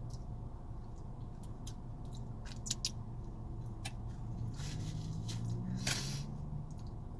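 Close-up mouth sounds of someone eating a burrito: wet chewing and lip smacks, with sharp clicks from about two and a half seconds in and a denser smacking stretch around five to six seconds. A steady low hum runs underneath.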